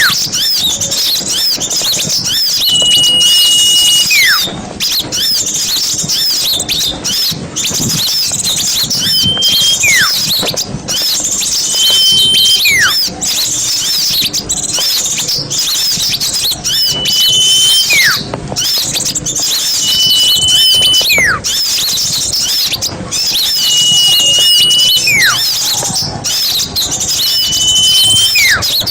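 Bird-lure recording of many small songbirds chattering and chirping non-stop in a busy mixed chorus. Through it a clear whistle is held for about a second and followed by a short falling whistle, repeating about every three seconds, as in a looped lure call.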